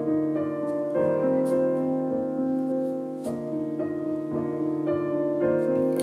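Background piano music, with new chords struck every second or two.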